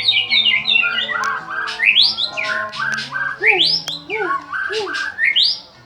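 White-rumped shama (murai batu) singing a loud, fast, varied song of rising whistled sweeps and quick chattering notes, repeated in phrases, over low background music.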